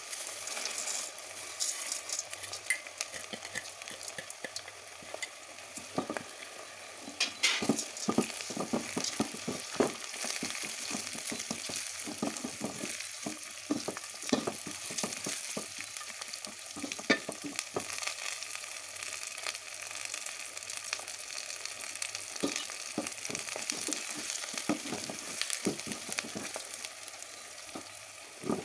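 Split moong dal frying in oil with sliced onions and green chillies in a metal pot: a steady sizzle, with a spoon scraping and clicking against the pot again and again as it is stirred.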